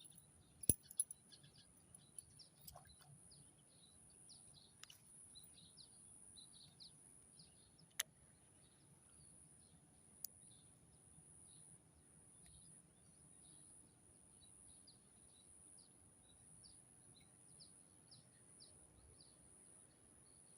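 Faint outdoor ambience: many short, high bird chirps over a steady high-pitched drone. A few sharp clicks come about a second in, around eight seconds in and around ten seconds in.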